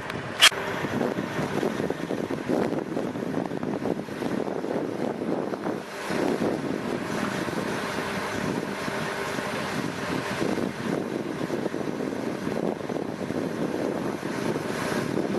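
Freightliner semi's Detroit diesel engine running steadily while its end-dump trailer stands raised to unload, with wind buffeting the microphone. A single sharp click about half a second in is the loudest sound.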